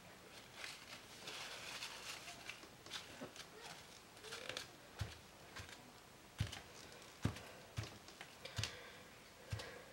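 Kitchen paper being dabbed onto a card lying on a cutting mat, soaking up wet paint splatters. A soft papery rustle comes first, then from about halfway a run of faint dull taps, irregular, roughly one every half second to a second.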